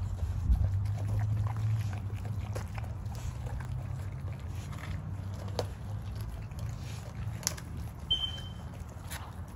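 American bully dogs chewing raw whole chickens: scattered wet crunches and cracks of bone over a steady low rumble, with a brief high squeak near the end.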